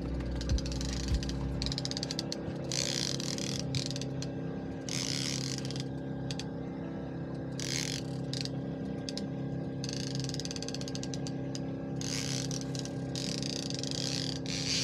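Salmon trolling reel clicking and ratcheting in repeated bursts of about a second each, as line is wound in or drawn off while a king salmon is being played.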